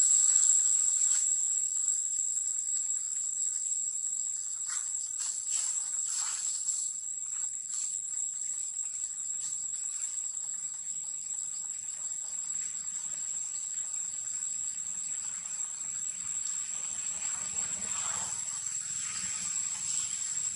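Insects buzzing in a steady, unbroken high-pitched drone, with a few faint rustles about a quarter of the way in and again near the end.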